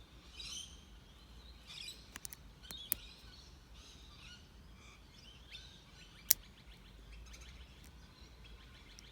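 Birds chirping outside, with short calls coming every second or so. A few sharp clicks cut through, the loudest about six seconds in.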